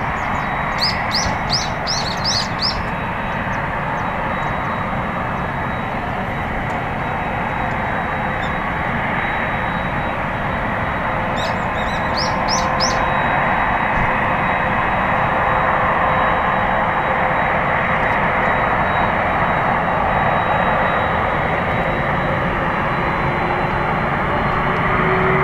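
Jet engines of a Japan Airlines Boeing 767 running at low power as it rolls slowly on the runway: a steady noise that grows a little louder in the second half, with a rising whine near the end as the engines start to spool up. A small bird chirps in quick runs of rising notes about a second in and again about 11 seconds in.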